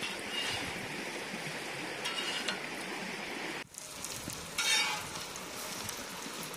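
Pieces of pepper fish sizzling in groundnut oil on a large iron tawa, almost done. A metal spatula scrapes across the pan in two short bursts, about two seconds in and again near five seconds.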